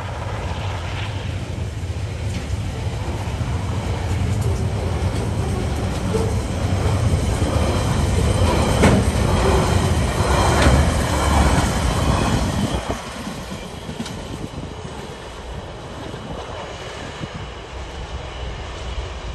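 Container wagons of a freight train rolling past, steel wheels clattering on the rails over a low rumble. The sound is loudest about nine to twelve seconds in, then drops sharply as the tail of the train passes and the train rolls away.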